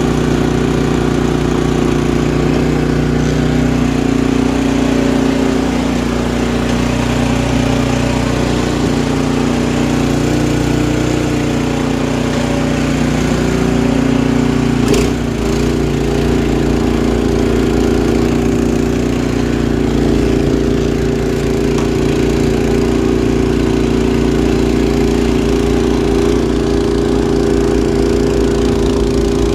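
Gas snowblower engine running steadily at a constant speed while clearing snow, with one brief sharp knock about halfway through.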